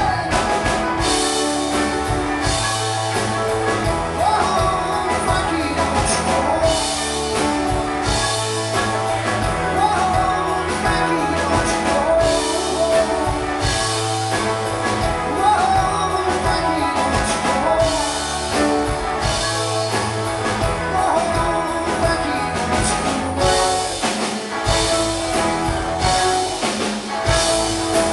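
Live rock band playing a song: singing over electric guitars, bass guitar, keyboard and drum kit, as heard from the audience in a concert hall.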